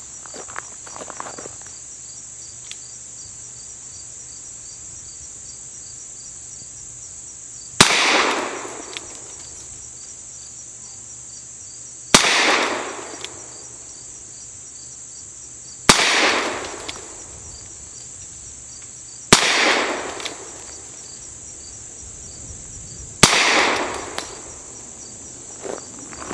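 Five shots from a Webley MK VI revolver firing .455 Webley cartridges, spaced roughly three to four seconds apart, each with a short echo trailing off. A steady high insect drone runs underneath.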